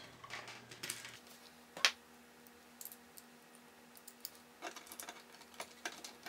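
Scattered light clicks and taps of hard 3D-printed plastic parts being fitted together and handled, with one sharper click about two seconds in.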